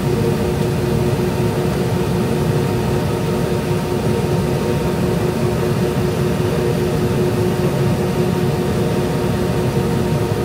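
Steady engine noise of a McDonnell Douglas MD-90 at taxi power, heard inside the cabin: a low rumble and hiss with a few held humming tones.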